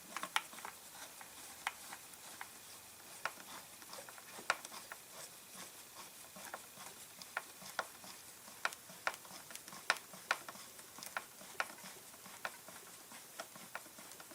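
Irregular light clicks and taps of a screwdriver and small screws being run in by hand on a chainsaw's carburetor and air-cleaner assembly.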